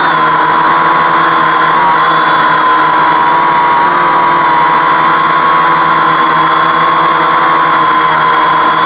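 Homemade 520 mm quadcopter's brushless motors and propellers hovering: a steady, loud whine whose pitch wavers slightly as the flight controller holds position.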